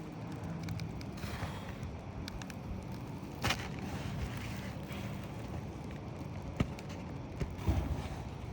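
Roofer working brittle asphalt shingles loose by hand and tool, giving scattered scrapes, crackles and clicks, with one sharper knock about three and a half seconds in and a few more near the end, over a low rumble of wind on the microphone.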